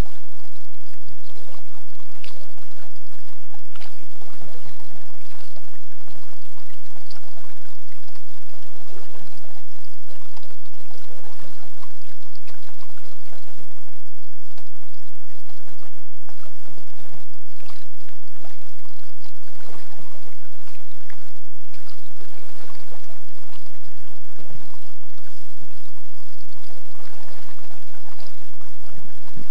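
Kayak paddle strokes: the blades dipping into the lake, with water splashing and trickling off them every second or two at an uneven pace.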